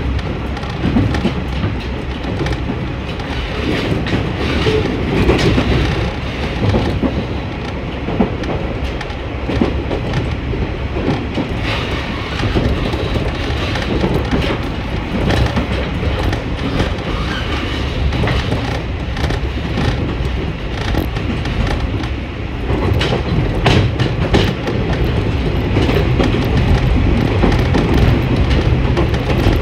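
Diesel railcar running at speed, heard from inside the passenger cabin: a steady rumble of engine and wheels, with clickety-clack of rail joints that is most marked a little past two-thirds of the way in. It grows louder near the end.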